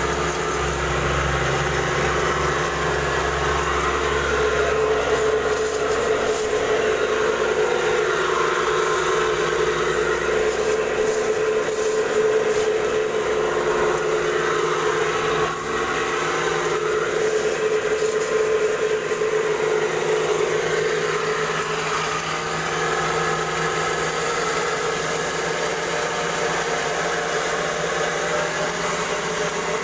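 Small household rice mill running steadily while milling paddy, a continuous mechanical hum with a strong steady tone.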